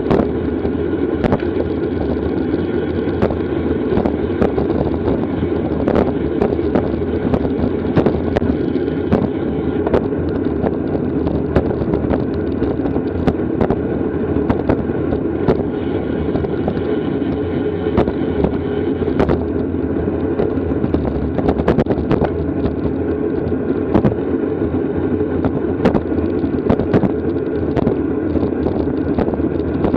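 Wind rushing over the microphone, with road and tyre rumble from a bicycle ridden at race speed. Scattered sharp clicks and knocks run through it.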